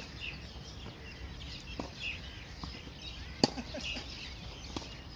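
Tennis ball being struck with rackets and bouncing during a rally: a few sharp, separate pops spaced a second or so apart, the loudest about three and a half seconds in. Birds chirp faintly in the background.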